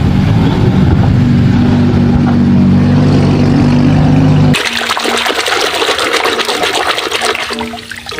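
A loud, steady, low engine-like hum that cuts off suddenly about four and a half seconds in, followed by splashing, trickling water.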